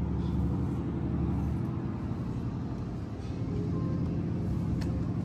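Motor vehicle engine running with a steady low drone, amid road traffic noise.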